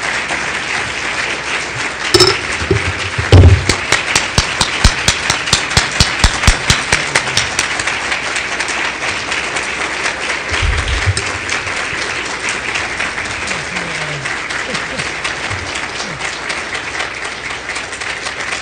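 A room full of people applauding steadily. From about three seconds in, for roughly four seconds, one pair of hands claps close to the microphone at about five claps a second, louder than the rest. There is a low thump about ten seconds in.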